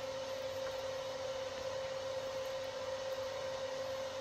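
Steady whir of an electric fan with a constant hum.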